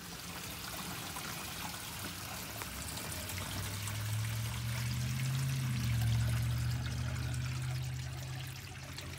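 A full kitchen sink draining through a newly installed InSinkErator garbage disposal and its plastic drain pipes and P-trap, heard from under the sink as rushing water with a low rumble that swells midway and fades near the end. This is the drain test for leaks at the new connections.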